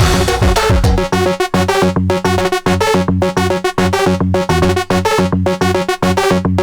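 Loud electronic dance-remix music played on a synthesizer keyboard: a choppy, stop-start riff of stacked notes over a steady bass line.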